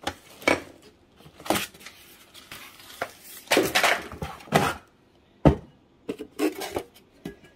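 Cardboard packaging and cookware being handled: short bouts of paper and cardboard rustling and scraping, with one sharp knock about five and a half seconds in.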